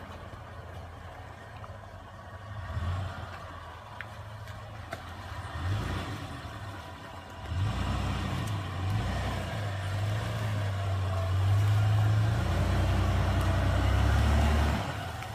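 A Toyota Land Cruiser 80-series engine revs in repeated surges as the vehicle works through a deep mudhole under load, rising and falling several times. Near the end the revs are held high for about three seconds, which is the loudest part.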